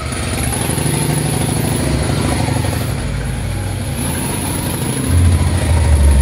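Motorcycle engine idling with a rapid, even low beat, getting louder about five seconds in.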